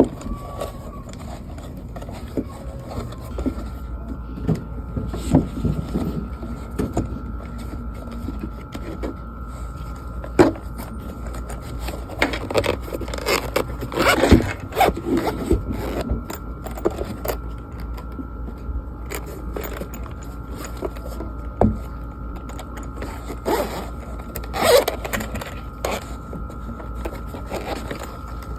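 Scrapes, clicks and rustles of objects being handled, clustered around the middle and again near the end, over a steady low hum and a faint steady high tone.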